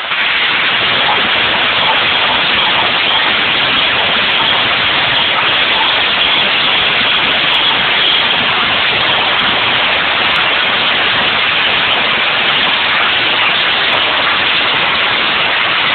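Dragster engine running, heard as a loud, unbroken roar without distinct pulses, as if the recording is overloaded.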